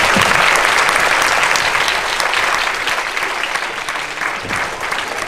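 Audience applauding in a theatre, dense at first and thinning out into scattered separate claps toward the end.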